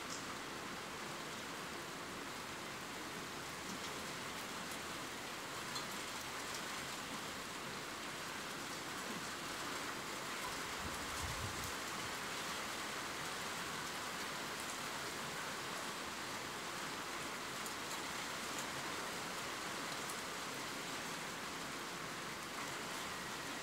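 Steady rain: an even hiss of falling rain with faint scattered drop ticks.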